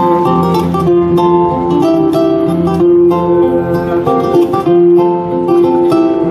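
Background music: a plucked acoustic guitar playing a repeating melody.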